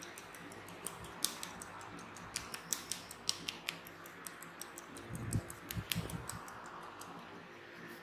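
Wooden massage tool rubbing and pressing over the skin and hair of the neck and behind the ear: a run of small sharp clicks and crackles, with a few soft low thumps about five to six seconds in.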